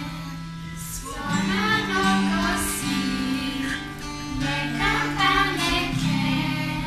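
Music: a song with singing voices over an instrumental accompaniment with held bass notes, the singing coming in about a second in.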